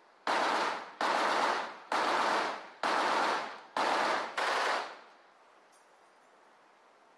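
M240B 7.62 mm machine gun firing six short bursts in quick succession, stopping about five seconds in.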